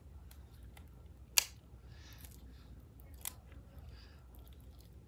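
Hands working a small balloon fidget toy: a sharp, loud snap about a second and a half in and a fainter one a little past three seconds, with soft rubbing between.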